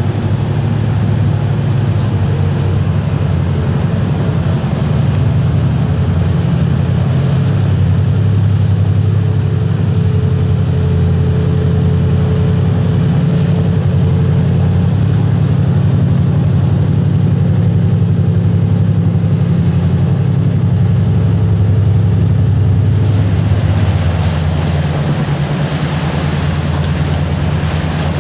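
A high-speed catamaran passenger ferry running past at speed, its engines giving a loud, steady low drone. Near the end the engine drone drops back and the rushing water of its wake grows louder as the boat heads away.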